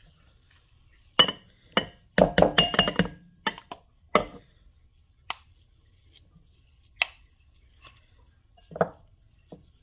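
A wooden spoon knocking and scraping against a bowl while stirring a crumbly tofu mixture: irregular single knocks, with a quick clattering run about two seconds in, some strikes ringing briefly.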